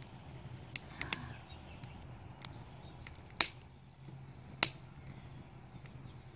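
Wood fire crackling in a steel fire-pit ring, with scattered sharp pops from the burning logs; the two loudest pops come past the middle, about a second apart.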